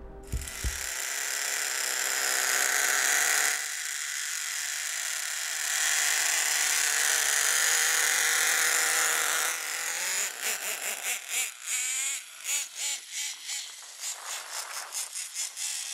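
Twin nitro engines of a Hot Bodies Lightning GTX2 RC monster truck running with a high-pitched buzz. From about ten seconds in, they rev up and down in quick blips as the truck is driven.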